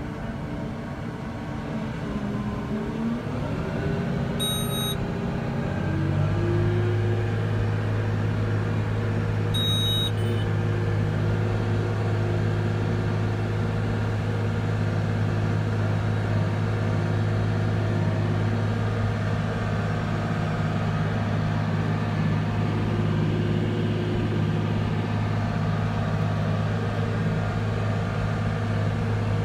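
Case IH Steiger 370 HD tractor's diesel engine heard from inside the cab while pulling a disk ripper through corn stalks. Its pitch rises over a few seconds near the start, then it runs steady under load. Two short electronic beeps sound about 5 and 10 seconds in.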